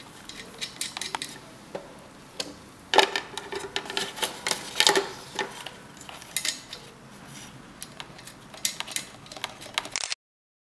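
Light clicks and small metallic clinks of hands fitting a capillary thermal cut-out and its metal bracket back onto a water heater's flange heating element, with denser clusters of clicks about three seconds in and around five seconds. The sound cuts off abruptly near the end.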